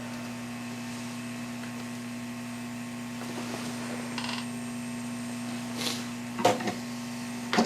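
Hot-air rework station blowing steadily over a low mains hum, with a brief click about four seconds in and a short knock near six and a half seconds.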